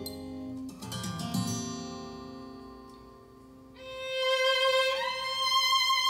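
A recorded vocal ballad with guitar and violin playing through KEF LS50 bookshelf speakers, driven by a Cambridge Audio CXA81 amplifier. The music softens in the middle, then swells as a singer holds the word 'love' near the end.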